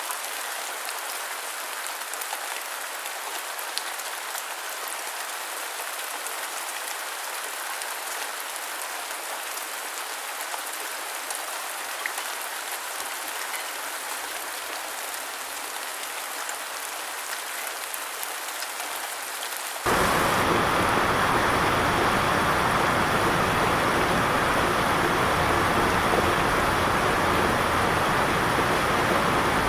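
Rain falling in a steady hiss with scattered drop ticks. About two-thirds of the way in it cuts abruptly to a louder, fuller downpour.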